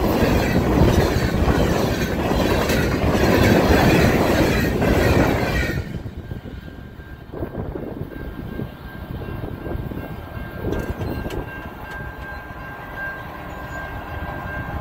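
Freight train boxcars rolling past at close range, the wheels clattering over the rails, until the last car clears about six seconds in. The sound then drops to a fading rumble, with a level-crossing warning bell ringing steadily.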